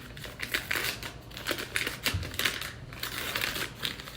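Paper butter-stick wrappers crinkling and rustling as they are peeled off, a busy run of short, irregular crackles and taps.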